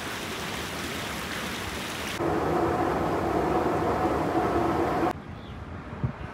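Water splashing steadily down a tiered courtyard fountain. About two seconds in it cuts to a louder steady noise with a hum, which drops off abruptly to quieter outdoor ambience near the end.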